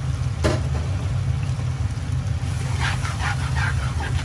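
Steady low hum with one sharp knock about half a second in, from a spatula striking a pan of simmering sauce.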